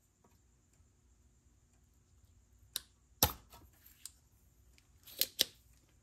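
Sharp clicks and taps of small hand tools and parts on an electronics workbench: a handful of separate clicks in the second half, the loudest about three seconds in, over a faint steady room hum.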